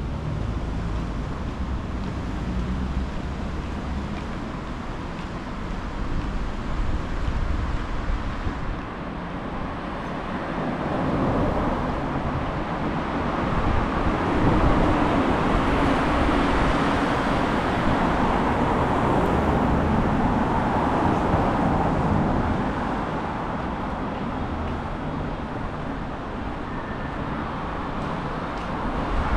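Street ambience with gusty wind rumbling on the microphone. A vehicle passes in the middle, its noise swelling over several seconds and then fading.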